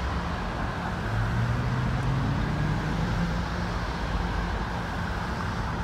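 Street traffic noise, with a motor vehicle driving past about a second in, its engine note rising slightly.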